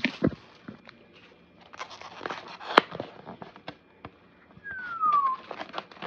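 Takeout food containers and packaging being handled: scattered clicks, taps and rustling, with one short falling squeak about five seconds in.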